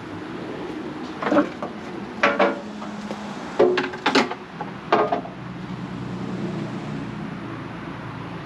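A John Deere 2155's starting circuit clicking without cranking: about half a dozen sharp clicks, irregularly spaced over a few seconds, as the key is tried. The solenoid is failing to engage the starter. A low steady hum runs underneath.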